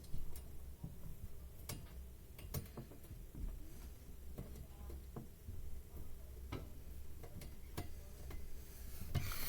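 Faint, irregular clicks and ticks of a screw being driven and a screwdriver working against the fan's plastic guard, with a low hum underneath.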